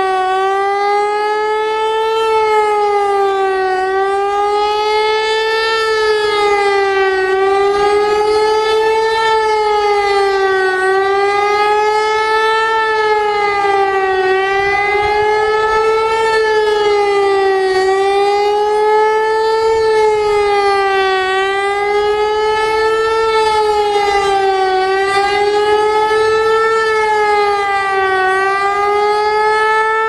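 Federal Signal Eclipse 8 electronic warning siren sounding its fast wail test signal: a loud tone rich in overtones whose pitch rises and falls over a narrow range about every three and a half seconds.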